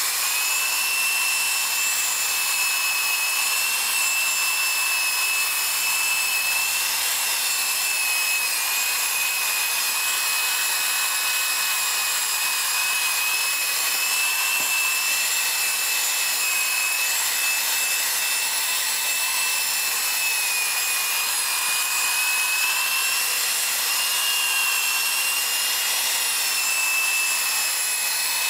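Handheld electric rotary tool running steadily, spinning a foam buffing pad against a wet, lacquered burl-wood trim panel. It gives a steady high whine that wavers slightly now and then, over the rub of the pad on the wood.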